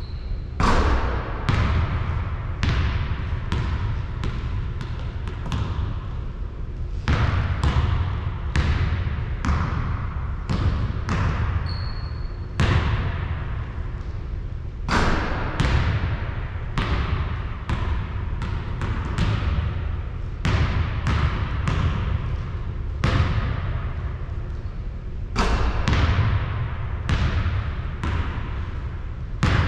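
A basketball bouncing on a hard court again and again, irregularly, about one to two bounces a second, over a steady low rumble.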